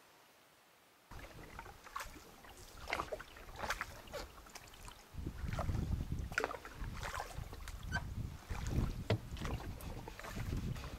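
Canoe being paddled: repeated small splashes and drips of the paddle in the water, several to a second, with wind rumbling on the microphone from about halfway. The first second is near silence before the sound cuts in suddenly.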